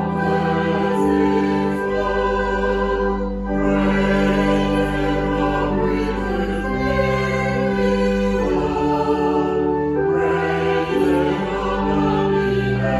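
Slow sacred music: a choir sings sustained chords over long held bass notes that change every second or two.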